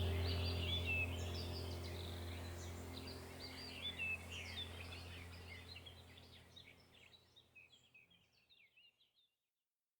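Rainforest birds chirping and calling over a low steady hum, the whole mix fading out over about six seconds to silence.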